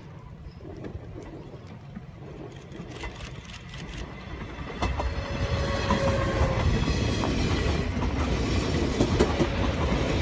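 JR West 381 series limited express electric train running through a station at speed without stopping. It grows louder as it approaches with a few knocks from the wheels, then about five seconds in the cars pass close by with a loud rush and wheel clatter over the rail joints.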